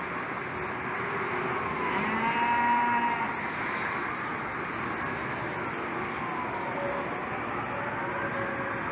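Emergency siren wailing, its pitch slowly rising and falling, over steady city background noise. About two seconds in, a loud, low, held note lasts about a second.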